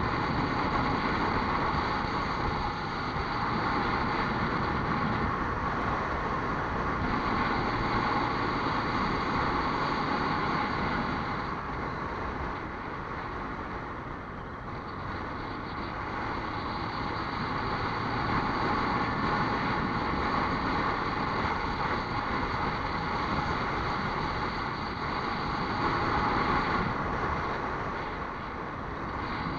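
A vehicle driving along a road: a steady rush of engine, tyre and wind noise that eases slightly in the middle and again near the end.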